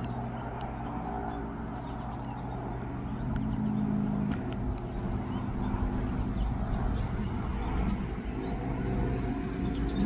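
A steady low engine hum, a little louder from about three seconds in, with faint short high bird chirps scattered over it.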